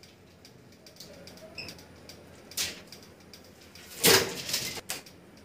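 Hand-cranked cold lamination roller turning with faint clicking, then a plastic laminating sheet rustling as it is handled at the roller: a short rustle about two and a half seconds in and a louder one about four seconds in, lasting most of a second.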